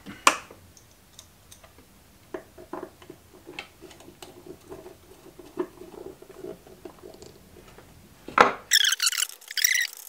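A ring terminal being screwed onto a marine bus bar by hand: scattered small clicks and taps of the screwdriver and metal parts. Near the end there is a sharper knock, then about a second of high-pitched scraping.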